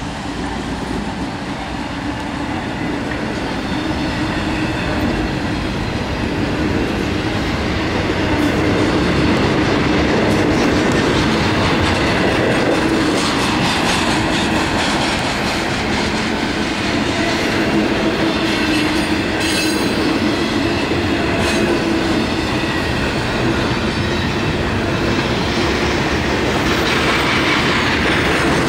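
Norfolk Southern intermodal freight train rolling past close by, with a steady rumble and the clatter of wheels on rail joints. The sound builds over the first several seconds, then holds.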